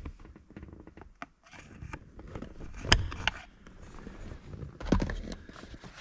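Clicks and knocks of an Allen key and hands working a GMC pickup's steering-wheel airbag module loose. A sharp click comes about three seconds in and a heavier thump near five seconds as the module pops free of the wheel.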